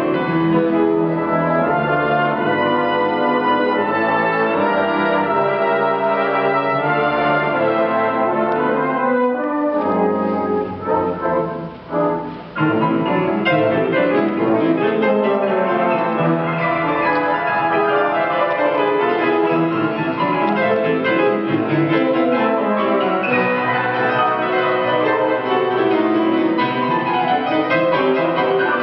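Brass band of cornets, euphoniums and tubas playing together with a grand piano. The music thins out briefly about ten seconds in, then the full band comes back in.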